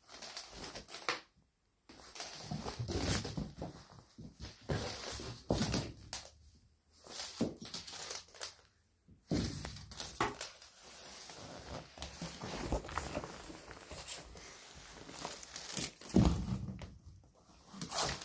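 Irregular rustling, scuffing and light thumps as a cat chases and pounces on a cloth tape measure dragged across a laminate floor, coming in short spurts with brief pauses.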